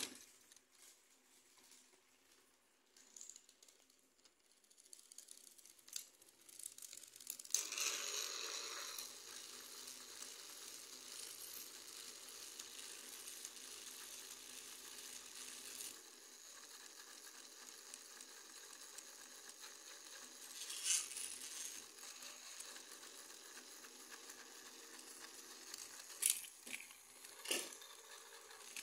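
Plastic toy locomotives being handled on a plastic track, giving scattered light clicks and knocks; about a quarter of the way in a faint steady hiss starts and runs on underneath.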